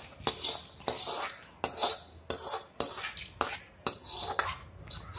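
Metal utensils scraping and clinking against a small frying pan in repeated short strokes, about two a second, as a tempering of fried mustard seed, garlic, dried chillies and curry leaves is emptied into a curry.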